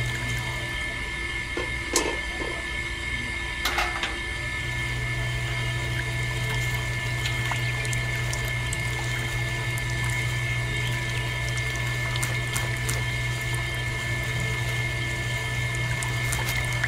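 Small electric motor driving a miniature sugarcane juice press, running with a steady hum and a thin steady whine, with juice trickling. A couple of light clicks come about two and four seconds in.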